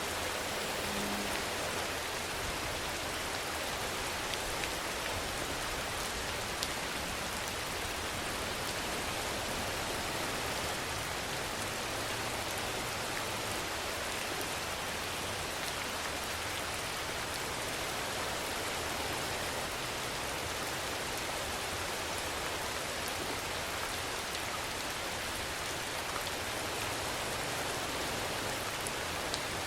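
Steady rainfall: an even hiss of rain falling on a surface, with a few faint single drop ticks.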